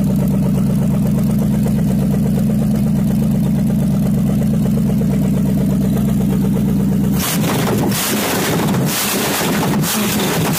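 305 small-block V8 engine running steadily on its first runs in years. About seven seconds in the sound turns rougher and noisier.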